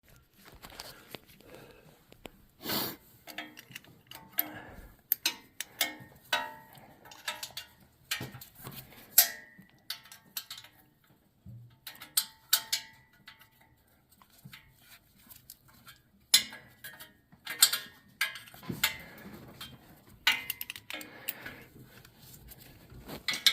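Irregular metallic clinks and knocks of hand tools and loose parts being handled, with sharper knocks a few seconds in, around the middle and again near the end.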